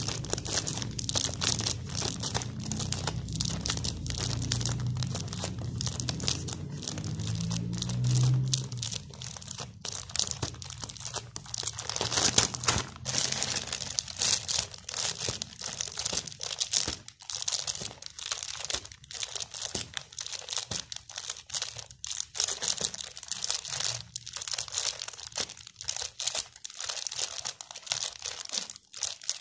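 Thin clear plastic bag of cooked paddy rice crinkling and crackling as it is gripped and pricked again and again with a needle, punching air holes so the Trichoderma culture inside can grow.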